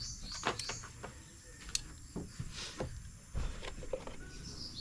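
Scattered light knocks and clicks, with a dull thump about three and a half seconds in, while birds chirp faintly in the background.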